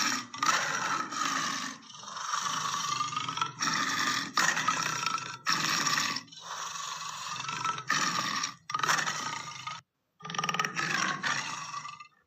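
Lion roar and growl sound effects, a rapid series of harsh roars, each about a second long, that start and stop abruptly as if cut together, with a short silent break near the end.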